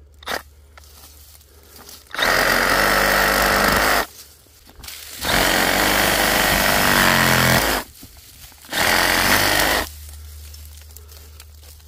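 Bauer 20V brushless compact reciprocating saw with a 9-inch Diablo pruning blade cutting through thin saplings in three bursts, about two seconds, two and a half seconds and one second long.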